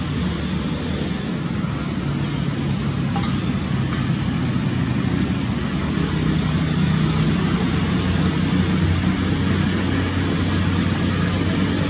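Steady low outdoor background rumble, with a few brief high chirps near the end.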